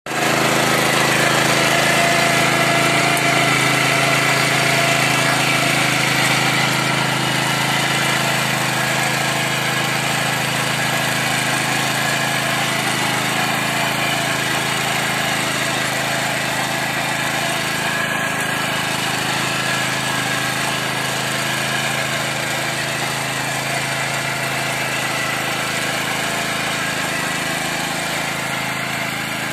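Petrol engine of a Kirloskar Mini T 8 HP walk-behind power tiller running steadily under load as its rotary tines churn the soil, growing slightly fainter toward the end.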